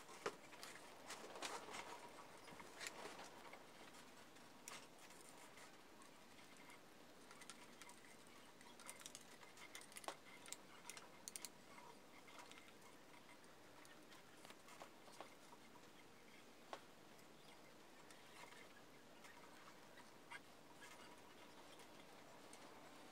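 Faint clicks and light rustling of thin hookup wires being handled and twisted together by hand, with scattered small ticks, a cluster of them about ten seconds in.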